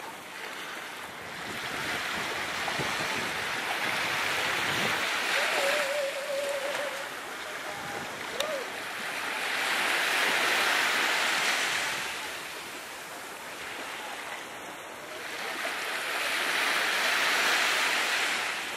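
Small sea waves breaking and washing up the shore, the hiss of the surf swelling and fading three times, about six seconds apart.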